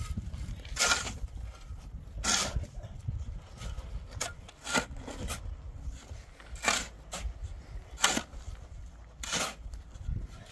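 Repeated short scraping strokes, irregularly spaced about a second or so apart, over a steady low rumble.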